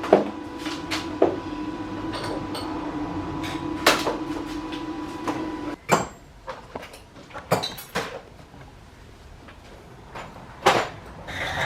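Sharp metal knocks and clanks from work on a caravan's jockey wheel mount, over a steady hum that cuts off suddenly about six seconds in.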